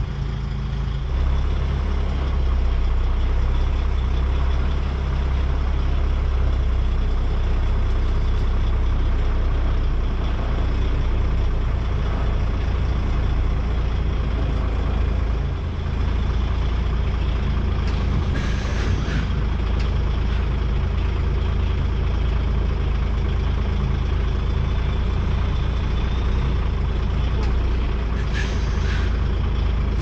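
Heavy truck's diesel engine running steadily at low revs while the lorry manoeuvres up to a loading dock. Compressed air from the brakes hisses briefly twice, once past the middle and once near the end.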